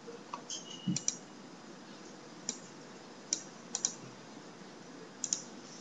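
Sharp clicks from a computer mouse and keyboard being worked, about eight spread through, some in quick pairs, over a faint steady hiss.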